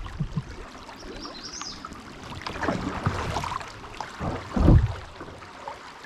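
Paddle strokes splashing and dipping in moving river water, with a louder low thump about four and a half seconds in.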